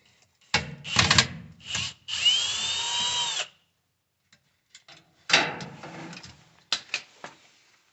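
Drill with a right-angle attachment and 1/4-inch nut driver running for about a second and a half with a rising, then falling whine, backing a hex nut out on the washer. Clatter and knocks of the tool and metal parts being handled come before and after.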